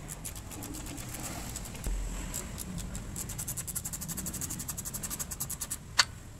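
Socket ratchet clicking as it undoes the 17 mm steering-rack mounting bolts. A few scattered clicks come first, then a fast even run of about ten clicks a second from about halfway in, and one sharp, louder click near the end.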